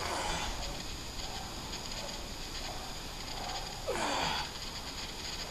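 A man breathing hard through a set of barbell forward lunges under an 80 kg load: a sharp exhale at the start and a louder exhale about four seconds in whose pitch drops, with quieter breaths between.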